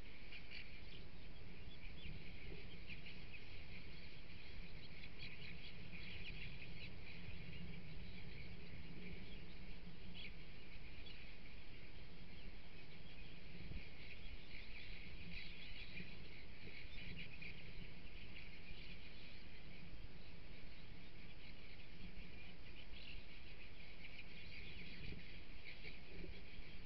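A feeding flock of bramblings calling: a steady chatter of many short, high chirps from numerous birds at once, over a low background rumble.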